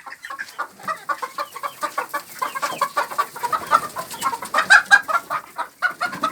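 A flock of laying hens clucking, many short calls overlapping, with a louder cluster about five seconds in.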